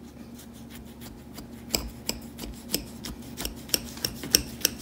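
Knife sawing through the baked, flaky lattice crust of a chicken pot pie: a run of short, crisp crunches, about three a second, starting a couple of seconds in.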